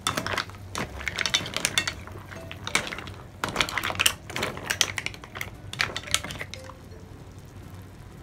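Mussel shells clacking against each other and the pan as a spatula stirs them in their broth in a wok, in dense bursts of clatter that stop about a second and a half before the end.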